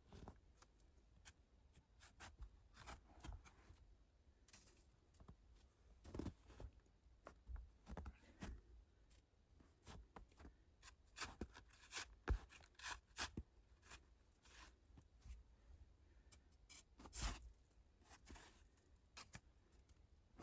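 Faint, irregular rustling, scraping and small knocks of close-up handling, with a few louder ticks scattered through.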